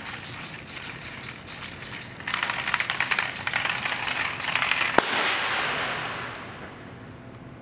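Four-cylinder LEGO Technic pneumatic engine running on boiled-off liquid nitrogen, its cylinders exhausting in a rapid crackle of puffs that quickens and grows louder after about two seconds. About five seconds in comes a sharp pop as a supply hose blows off, and a rush of escaping nitrogen gas follows and fades away.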